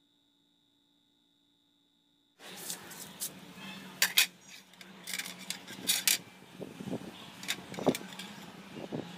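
Near silence for about two seconds, then background noise sets in abruptly: a steady low hum with several sharp clicks and rattles over it, the loudest about four seconds in.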